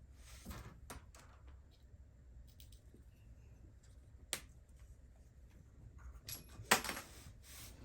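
Quiet, scattered clicks and taps of a hand screwdriver and small parts being handled while unscrewing an RC truck's steering servo, with one sharp click about four seconds in and a quick run of clicks near the end.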